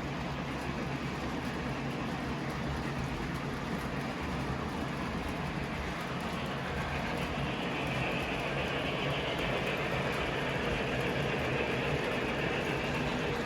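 Model train running on the layout track: a steady rumble and hum of wheels and motor, growing a little louder and brighter about halfway through.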